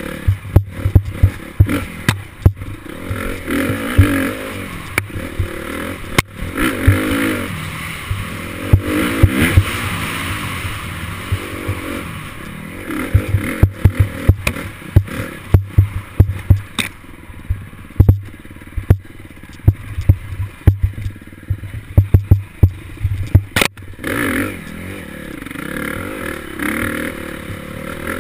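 Off-road motorcycle engine revving up and falling off again and again as it is ridden along a bumpy dirt trail, with frequent sharp knocks and rattles from the jolts.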